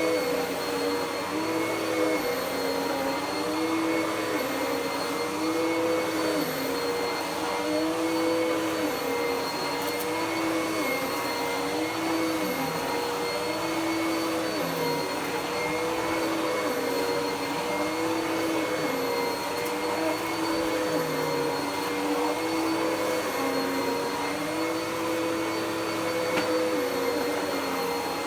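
Dirt Devil PowerMax Pet upright vacuum cleaner running on carpet. The motor hum dips and recovers in pitch at an even rhythm, about once every second and a half, as the vacuum is pushed back and forth.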